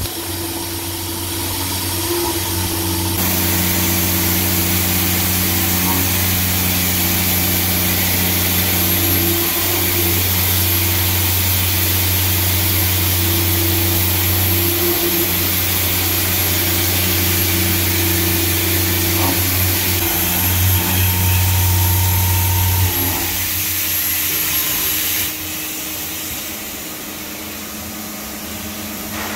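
CNC machining center milling steel with a five-insert Palbit Tetrafeed high-feed roughing cutter. A steady machine hum runs under a constant hiss of cutting. The hum changes about 23 seconds in, and the sound drops a little a couple of seconds later.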